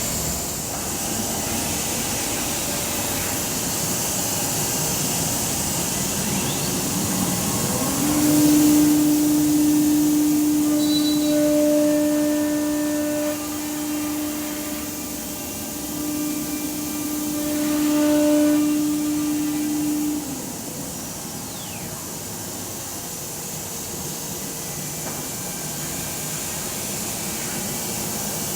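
Weeke Vantech 480 CNC router at work: a steady hiss from its Becker vacuum hold-down pumps runs throughout. From about a third of the way in, a steady whine, most likely the router spindle cutting, holds for about twelve seconds, dipping briefly midway, then stops.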